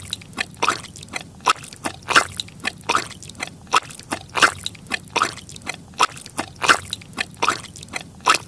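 Squelching footsteps through wet mud, a steady run of about three steps a second.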